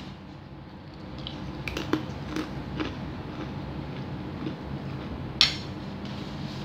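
A metal spoon clinking lightly against a soup bowl a few times, with one sharper clink near the end, over a steady low hum.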